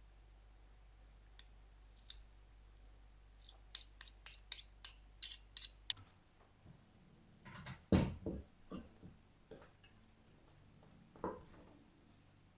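A quick run of about nine sharp snipping clicks, then a loud knock about eight seconds in, followed by a few lighter clicks and taps of kitchen or craft handling.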